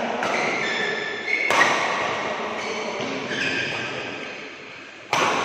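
Badminton racket strikes on a shuttlecock during a rally in a large hall: three sharp hits, about the start, about a second and a half in, and near the end, each ringing on in the hall's echo. Between the hits come short high squeaks from court shoes.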